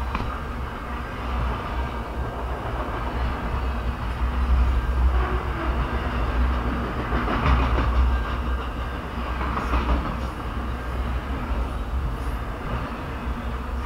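Freight train cars (autoracks and boxcars) rolling past close by: a steady rumble of steel wheels on the rails, swelling in loudness now and then.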